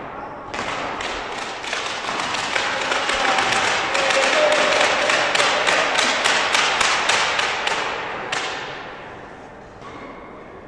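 Spectators clapping in an indoor hall after a point in a badminton match. The claps build into a fast, even beat of about five a second and die away near the end.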